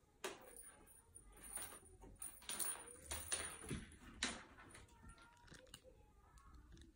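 Paper rustling and scratchy scuffing as a kitten plays on loose sheets of paper on wooden floorboards. There is a quick run of crackles and clicks over the first four seconds, then only scattered faint ticks.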